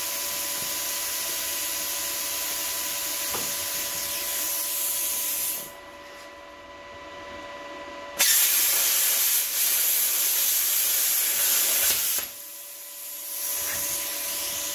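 Handheld plasma cutter cutting sheet steel: a steady hiss with a faint steady whine, which drops away about six seconds in and then comes back as a louder, brighter hiss for about four seconds. It stops briefly, then the hiss returns at its earlier level.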